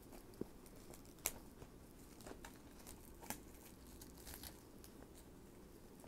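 Clear plastic shrink-wrap being picked at and peeled off a DVD case: faint crinkling with a few scattered sharp crackles, the loudest about a second in.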